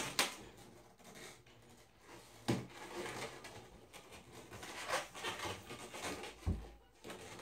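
Latex modelling balloon being twisted and handled, rubbing and squeaking, with three short sharp thumps: near the start, about two and a half seconds in, and near the end.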